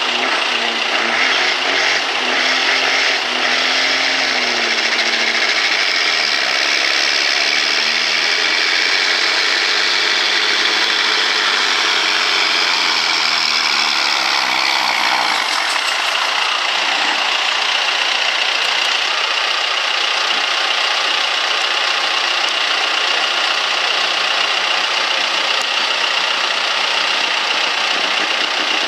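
Altered semi truck's diesel engine working hard under load while it pulls the sled, its pitch rising and falling. About halfway through, the sound changes abruptly to a steadier engine running, with no strong pitch swings.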